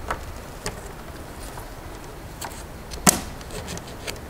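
A few small sharp clicks and taps of metal being handled as a pop rivet is pushed into the bottom hole of an aluminium bracket, the sharpest about three seconds in.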